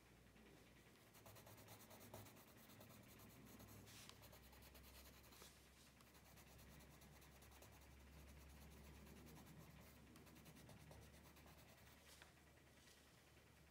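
Faint scratching of a Prismacolor coloured pencil on the paper of a colouring book as it shades in small strokes.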